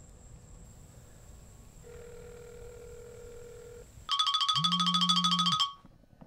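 Mobile phone ringing: about four seconds in, a loud, fast-pulsing electronic ringtone plays for about a second and a half, with the low buzz of the phone's vibrate motor under it. Before it there is only a faint low hum.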